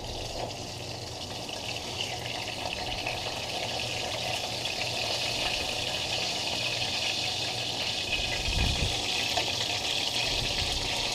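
Breaded fish fillets frying in hot oil: a steady hissing sizzle that slowly grows a little louder, with a dull low bump about eight and a half seconds in.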